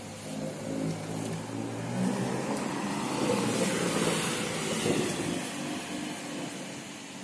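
Porsche 911 Carrera S (992) twin-turbo flat-six pulling away, its engine note climbing. It is loudest as it passes close by about four seconds in, then fades as it drives off.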